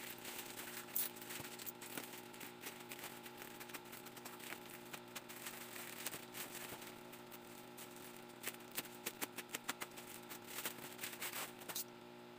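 Plastic courier mailer bag crinkling and rustling as it is handled and opened, faint, with a run of sharper crackles about two-thirds of the way through and a faint steady hum underneath.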